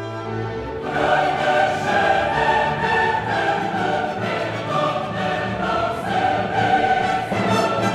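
Background music with choral singing, swelling up over the first second and then holding steady.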